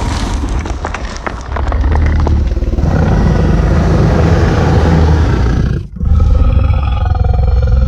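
Dragon sound effect: a rumbling, crackling growl that swells into a long, deep roar, breaks off for a moment, then starts again as a second roar with a harsher, more pitched voice.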